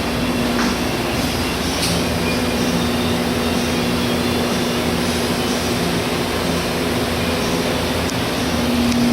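A motor running steadily, a constant hum under a rushing hiss, with a couple of faint clicks.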